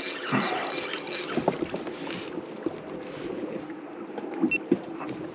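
Water lapping and sloshing against a kayak hull, with a rapid ticking in the first second and scattered light knocks after it.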